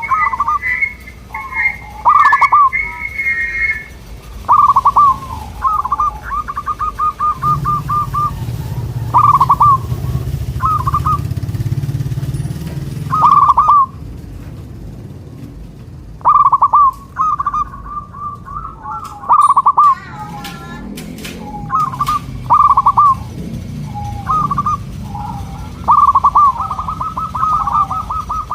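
Zebra doves (perkutut) cooing: short, rapidly pulsed coo phrases repeated every second or two, answering one another, with a longer rolling run of coos near the end. A low background rumble comes and goes underneath.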